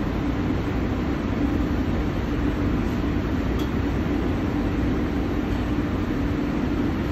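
Steady machine drone with a low hum, even in level throughout.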